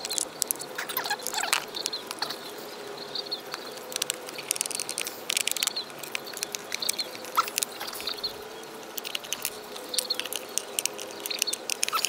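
Scattered small clicks, ticks and scrapes of a screwdriver backing screws out of the plastic head housing of a MotorGuide Xi5 trolling motor, with the housing being handled between turns.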